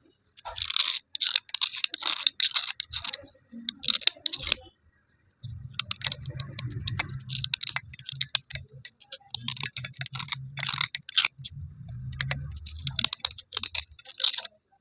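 Broken slate pencil pieces crunching and grating against each other in dense, irregular gritty clicks, pausing briefly about five seconds in. A low hum runs under the crunching for most of the second half.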